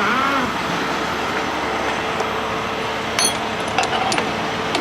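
Semi-truck's diesel engine running steadily, with a faint steady hum over it and a few light clicks about three seconds in.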